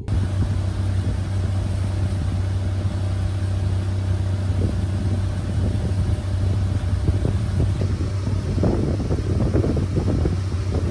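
Pontoon boat's outboard motor running steadily under way, a constant low hum.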